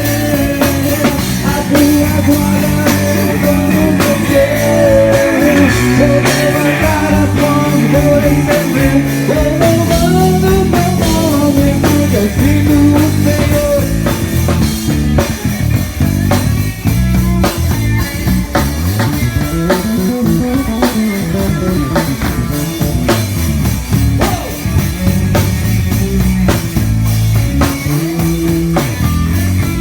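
A live gospel rock band playing a song, with drum kit, bass and electric guitar, the guitar's notes bending and sliding over a steady beat.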